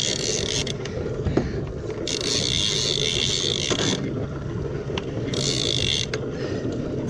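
Two-speed lever-drag trolling reel being cranked against a hooked fish, its mechanism whirring in three bursts of high hiss that start and stop abruptly, over a steady low hum.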